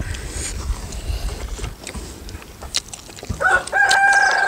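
A rooster crows once: one long, loud call that begins near the end, after a few light clinks of steel dishes.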